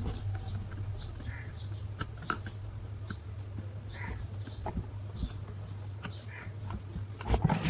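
A steady low electrical hum, with scattered sharp clicks and taps and a few faint short chirps.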